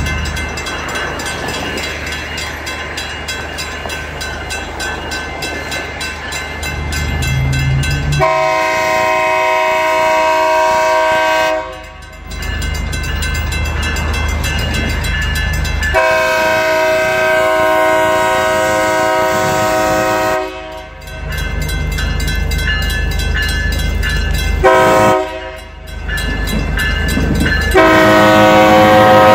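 BNSF 3GS21B genset switcher locomotive running as it moves slowly, with its air horn sounding the grade-crossing signal: two long blasts, one short, and a final long blast beginning near the end. The engine's running is heard between the blasts.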